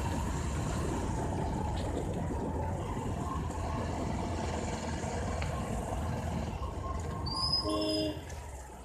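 Bajaj Discover 150F's single-cylinder engine running while riding, mixed with steady wind and road noise. A brief pitched tone sounds about seven and a half seconds in, and the engine noise falls off sharply just after it.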